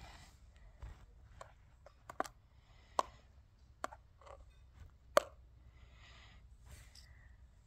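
Tweezers clicking and tapping against a clear plastic dish: about eight sharp separate clicks spread unevenly, the loudest about five seconds in, with soft rustling between.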